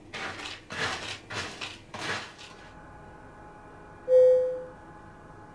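A cat scratching in pellet cat litter: four or five rustling scrapes over the first two and a half seconds. About four seconds in comes a single short, bright chime that fades within half a second, the loudest sound here.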